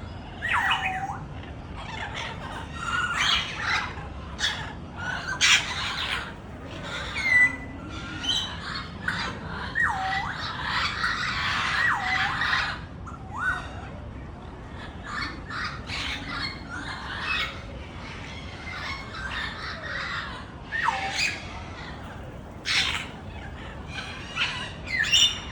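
Several parrots squawking and calling, with many short harsh calls overlapping and some calls that swoop down in pitch and back up.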